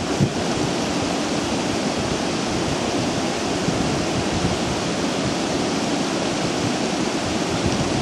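Steady rushing noise with wind buffeting the microphone in uneven low gusts.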